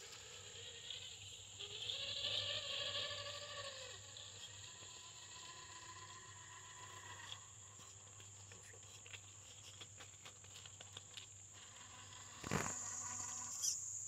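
Electric motor and drivetrain of a Traxxas TRX-4 RC crawler truck whining under throttle for about two seconds, pitch rising, holding, then dropping, followed by fainter bursts of motor whine. A steady high-pitched tone sounds throughout, and a brief knock comes near the end.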